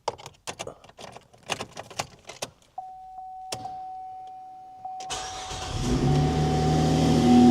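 GMC Acadia's engine being started: a few clicks and knocks, a steady tone coming on about three seconds in, then about five seconds in the engine catches and runs, growing louder toward the end.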